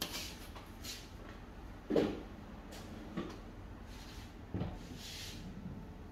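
A few scattered knocks and thumps from kitchen work, the loudest about two seconds in, with a brief soft rustle near the end.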